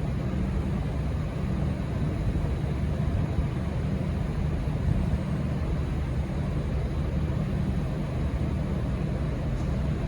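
Diesel engine of a V/Line N class locomotive running steadily, a low, even rumble with no horn sounding.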